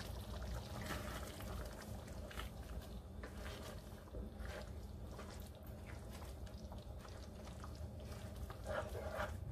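Red spoon stirring a thick, simmering cream sauce in a stainless skillet: soft, scattered scrapes and wet stirring sounds over a steady low hum.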